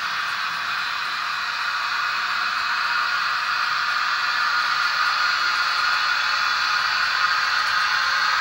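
Model train running on the layout track: a steady whirring rolling noise from the passing coaches' wheels on the rails, growing a little louder toward the end.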